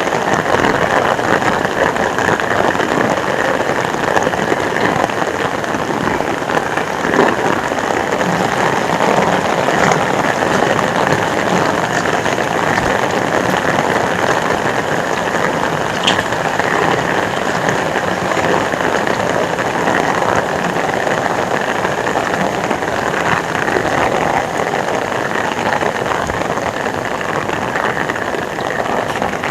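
Heavy rain falling, a loud, steady downpour hiss.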